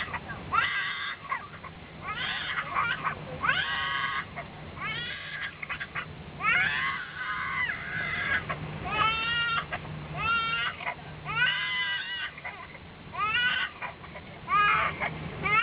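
An infant crying in a series of short rising-and-falling wails, about one a second, over the steady hum of an airliner cabin.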